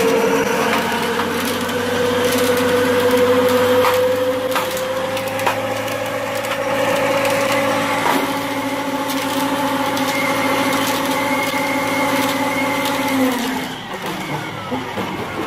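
Tractor running at high speed and driving a spinning rotary disc implement: a steady machine whine with a crackling rattle and a few sharp knocks. The whine drops away about 13 seconds in.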